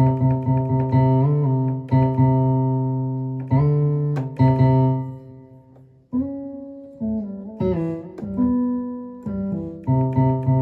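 Roland Juno-Di keyboard playing repeated notes on a plucked, guitar-like sound. The pitch bend lever bends the notes up and down several times and they come back to tune, showing the repaired pitch bend working. About halfway through the notes die away briefly before playing resumes.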